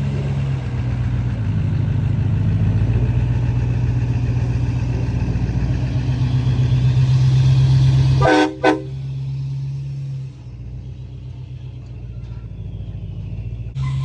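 Vehicle horn honking among trucks: a loud, steady low horn tone for about eight seconds cuts off suddenly, followed by a brief higher toot. Quieter engine noise runs on after it.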